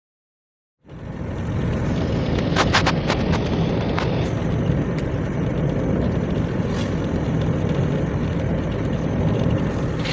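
Road and wind noise inside a moving car: a steady low rumble that starts about a second in, with a few sharp clicks two to four seconds in.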